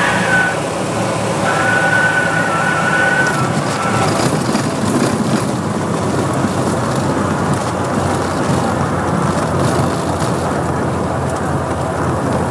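Cessna 182's six-cylinder piston engine and propeller running at low taxi power, heard inside the cabin. There is a faint high whine in the first few seconds and scattered clicks and rattles as the plane rolls over the rough sand strip.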